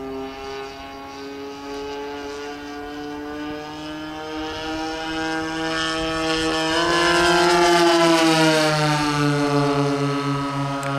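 The two DLE 30 gas engines of a large RC twin-engine plane drone in flight. The pitch and loudness rise to a peak about seven seconds in as the plane makes a low pass, then the pitch drops as it climbs away. A pulsing low throb runs under the drone near the end.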